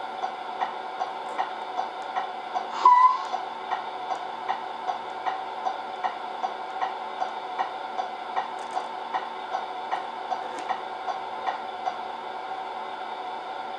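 Simulated diesel truck engine idling from the RC truck's MFC-03 sound unit: a steady drone with a sharp tick repeating about two and a half times a second. A short beep sounds about three seconds in.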